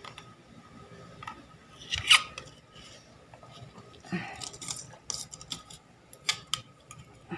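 Foil blister pack of tablets crinkling and crackling as it is handled, in several short bursts, the loudest about two seconds in.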